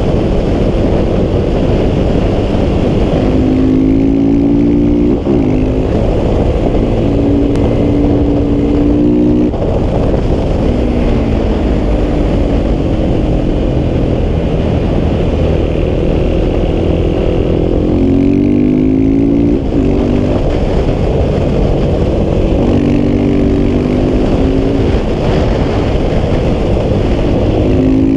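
KTM 690 SMC R's single-cylinder engine through an aftermarket Wings exhaust under hard track riding: its note climbs in pitch several times as it accelerates and breaks off at the gear changes, over a constant rush of wind noise.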